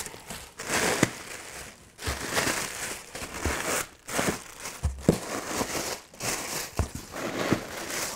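Inflated plastic air-cushion packaging crinkling and rustling in repeated bursts as strips are pulled out of a cardboard box, with a few dull low thumps among them.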